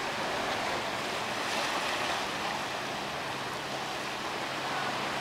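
Sea surf washing steadily against rocks, an even rushing hiss with no distinct splashes or impacts.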